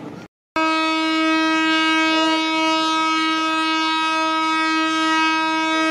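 Ship's horn sounding one long, loud, steady blast. It starts abruptly about half a second in, as a departing tall ship signals.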